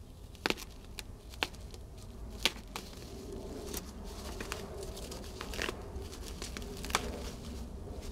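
Bubble wrap being slit with a knife and pulled apart by gloved hands: plastic crinkling and tearing, with a few sharp snaps. The crinkling grows busier after the first few seconds.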